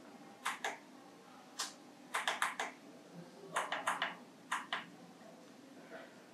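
Front-panel push buttons of a Mechanic MA-SD01 soldering station clicking as they are pressed to step the set temperature up and down: about a dozen short clicks in quick runs of two to four, stopping about five seconds in.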